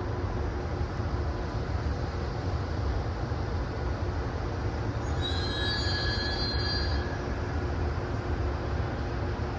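Freight train running on rails with a steady low rumble; about halfway through, the wheels squeal against the rail in several high tones for about two seconds.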